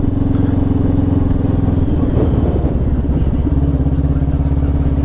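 Macbor motorcycle engine running steadily under the rider. Its note dips and wavers about two seconds in, then settles back to a steady pitch about a second and a half later.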